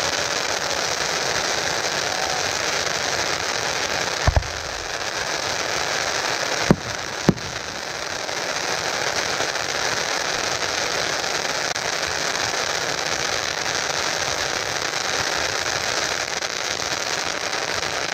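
A row of ground fountain fireworks spraying sparks: a steady dense hiss and crackle. Three sharp bangs cut through it, one about four seconds in and two close together about seven seconds in.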